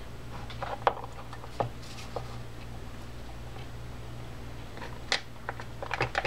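Small clicks and taps of the reel's crosswind block and body parts being handled and pressed into place, a few scattered clicks and then a quick cluster of them near the end, over a steady low hum.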